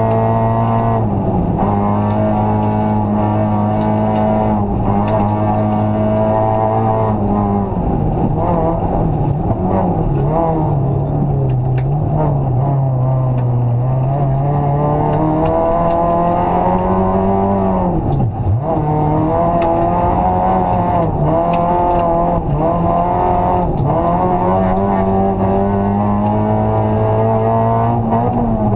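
Rally car engine heard from inside the cabin at full stage pace, its pitch climbing under acceleration and dropping sharply at gear changes and lifts, with the deepest drop about 18 seconds in.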